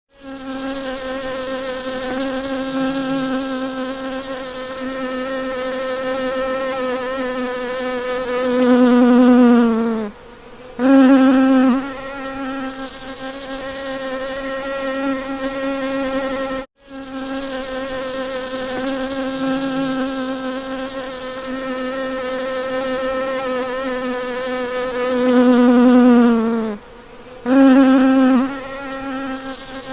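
A bee buzzing in one steady, even tone. Twice the pitch sags and the buzz breaks off for about half a second, then comes back louder, because the same stretch of recording plays twice.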